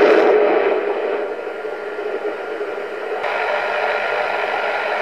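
BC-348-N valve HF receiver's loudspeaker giving a steady hiss of static with no station audible, the sign of a band that isn't open. About three seconds in, as the band switch is turned down to the 6–9.5 MHz range, the hiss changes and grows brighter.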